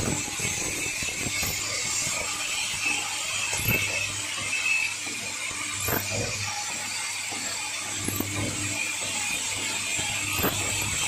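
Automated machine drilling brass fittings with horizontal spindle heads: steady mechanical running with a sharp clack about every two seconds.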